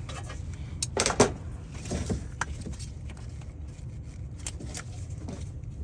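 Snap-on ratcheting box wrench and metal parts clicking and knocking at the AC compressor bolt as it is worked after being freed, in irregular single clicks with a louder cluster about a second in, over a steady low hum.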